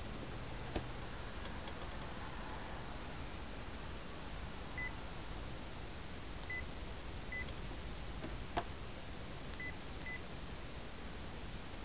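Sharp SH903iTV mobile phone key-press beeps, five short, high beeps spread over several seconds as its menus are stepped through. Two sharp clicks, one near the start and one about two-thirds of the way in, sound over a steady hiss.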